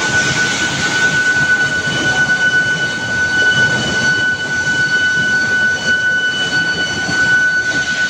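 Steel billet induction heating line running: a steady high-pitched whine over the continuous rumble of the motor-driven roller conveyor carrying a red-hot billet.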